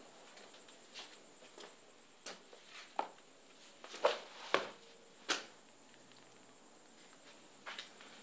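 Footsteps and small knocks of a person walking in: a dozen or so short, irregular steps, the loudest about four to five and a half seconds in.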